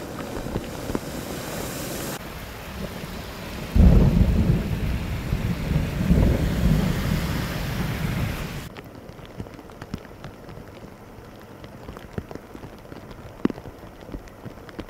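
Splashing and spray of vehicles driving through flash-flood water across a road, with rain throughout. About four seconds in a loud, deep rolling rumble starts suddenly and swells for about five seconds, then gives way to steady rain and rushing floodwater with scattered drop ticks.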